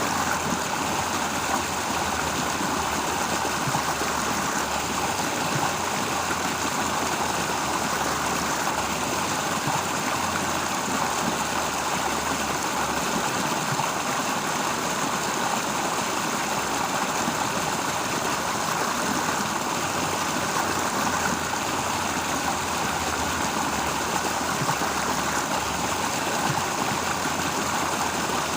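Stream water running steadily, an even rushing and gurgling flow.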